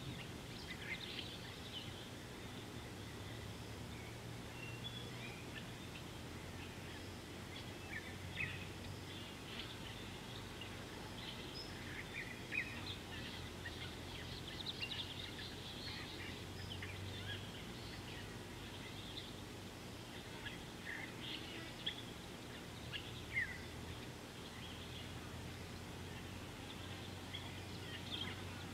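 Wild birds chirping and calling, many short scattered chirps throughout, over a steady low hum.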